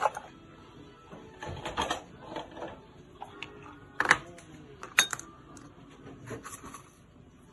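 Sharp clinks and knocks of a metal spoon, a glass bowl and a bottle being handled on a countertop, the loudest two about four and five seconds in.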